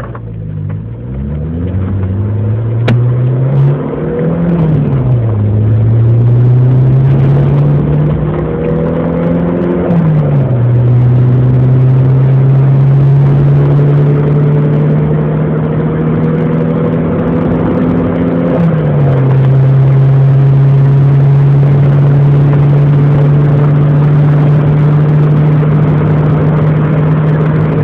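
Nissan Micra 1200's engine under hard acceleration from a standstill, heard from inside the car. The revs climb and drop back sharply at three upshifts, then hold nearly steady at speed.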